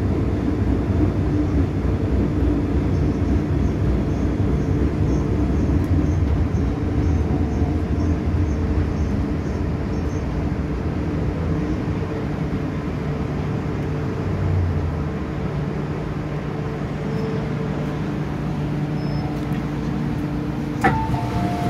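MTR M-Train electric multiple unit running, heard from inside the car by the door: a steady rumble of wheels on rail with traction motor hum, getting a little quieter in the second half as the train pulls into the platform. Near the end there is a sharp clunk, and a two-tone chime starts.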